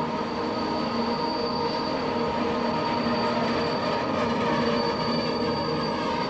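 A steady, dense metallic drone of many held tones with a thin high whistle above it, like screeching metal, in the soundtrack.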